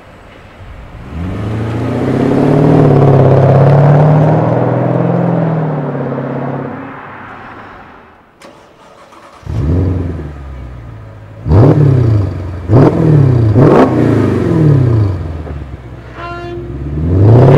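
Mercedes-Benz R230 SL500 V8 through an MEC Design stainless steel 'Earthquake' sport exhaust, loud: first pulling away and accelerating past with rising then falling pitch, then, standing still, revved sharply three times in quick succession, each rev falling back, before setting off hard near the end.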